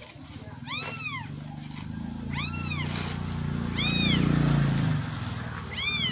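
Four high-pitched kitten mews, each rising then falling in pitch, about one and a half seconds apart, coming from the bag of fake kittens. A low rumble runs underneath, swelling toward the middle.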